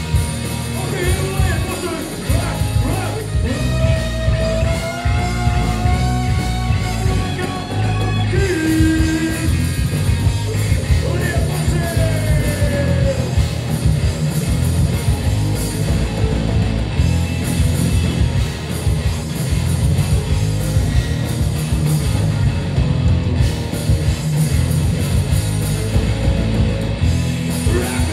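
Live hard rock band playing loudly: distorted electric guitars, bass and drums, with a sliding lead guitar line and singing.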